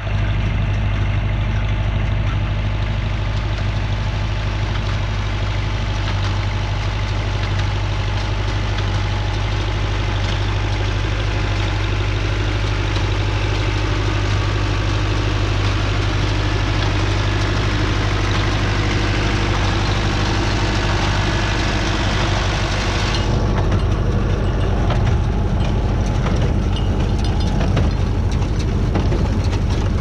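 Renault 651-2 tractor's diesel engine running steadily as it pulls and drives a New Holland 68 small square baler through the hay.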